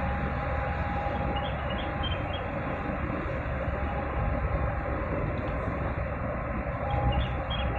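Steady rumble and rushing noise of the cruise ship Explorer Dream passing close by under way, with a faint steady hum that fades in and out.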